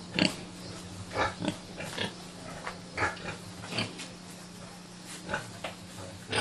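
Pigs grunting and squealing in a pen, about ten short separate calls over a few seconds, with a steady low hum underneath.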